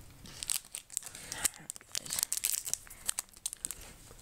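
Foil trading-card booster pack wrapper being crinkled and torn open by hand, a run of sharp, irregular crackles.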